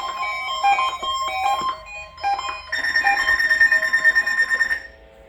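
Weather alert radio sounding its electronic alert for a Required Weekly Test: a quick run of short beeping notes, then a rapidly pulsing high-pitched tone that cuts off suddenly about five seconds in.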